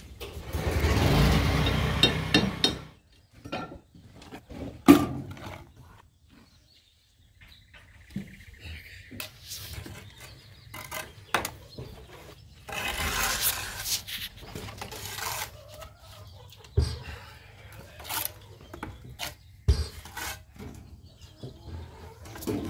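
Handling noise as the phone is moved and rubbed for the first few seconds, then concrete-block laying: blocks scraped and rubbed into place in mortar, with a few sharp knocks, the loudest about five seconds in.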